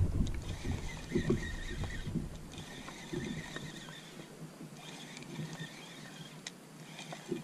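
Spinning reel being cranked as a hooked fish is reeled in, with a faint high whine that breaks off a couple of times. A few short low sounds come in the first three seconds.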